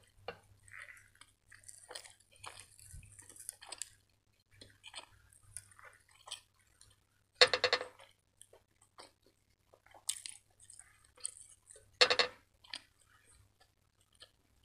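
Close-miked eating: a sauce-coated iceberg lettuce leaf is wiped wetly across a plate, then chewed with small wet mouth clicks and smacks. Two louder crisp crunches come about halfway through and again some four seconds later.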